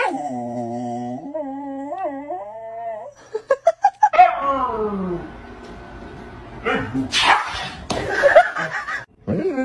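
A dog making long, drawn-out howling vocalizations: one held note that wavers a couple of times, then a long howl that falls in pitch about four seconds in. Near the end comes a louder, noisier stretch of dog sounds.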